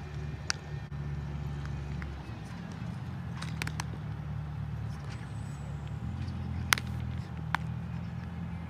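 Several sharp pops of a baseball smacking into leather gloves, the loudest about two-thirds of the way through, over a steady low rumble.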